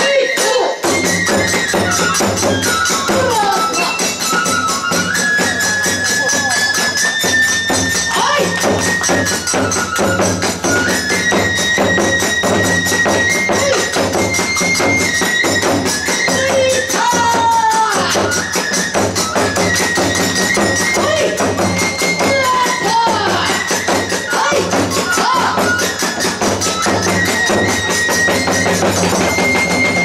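Hiroshima kagura accompaniment played at a fast pace: rapid, continuous strokes on a large taiko drum and a small drum with jangling small hand cymbals, under a high bamboo flute melody that holds notes and steps between pitches.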